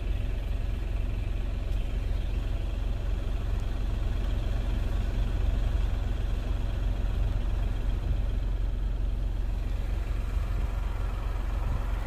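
Car engine idling, a steady low rumble heard from inside the car while it waits in a traffic queue.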